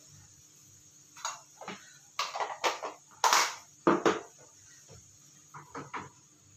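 Clatter of a wooden-handled spatula knocking against a bowl and a frying pan of clams in their shells being stirred: a run of sharp knocks over a few seconds, then a few lighter taps near the end.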